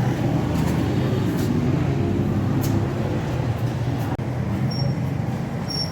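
Engine running at a steady idle, with a few light clicks.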